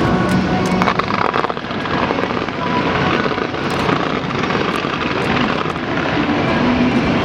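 Fireworks display going off: many bursts and crackles running together into a steady rumble, with sharp pops scattered through it.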